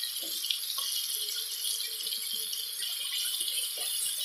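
Onion, tomato and green chillies frying in oil in a nonstick pan, a steady sizzling hiss, with a few light clicks of a wooden spatula against the pan.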